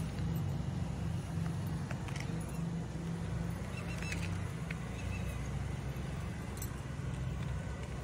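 Steady low outdoor rumble, traffic-like, with a few faint short high sounds about four to five seconds in.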